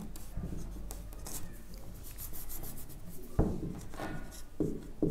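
Marker pen writing and rubbing out on a whiteboard: faint scratchy strokes, with a few sharper strokes in the second half.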